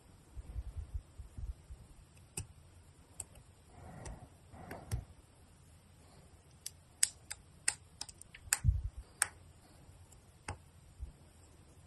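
Plastic parts of a Bandai MGSD Freedom Gundam model kit being handled and pressed together, giving sharp little clicks and snaps. Clicks are scattered at first, then come in a quick run a little past the middle, with soft rubbing of plastic between them.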